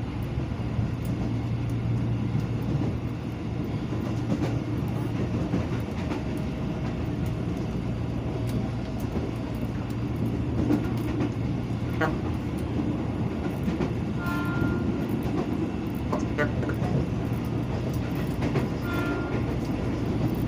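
A KRL Commuterline electric train running along the track, heard from inside the carriage: a steady rumble and hum, with a few sharp clicks from the rails.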